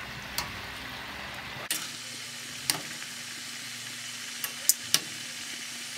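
Suadero beef frying in a steel pan with a steady sizzle. Metal tongs click sharply against the pan about six times, twice in quick succession near the end.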